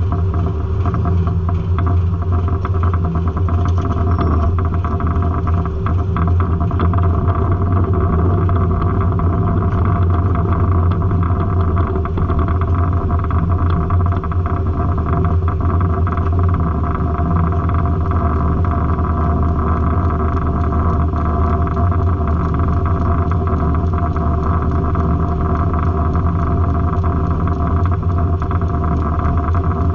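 Circle sawmill running: a loud, steady engine drone with no breaks.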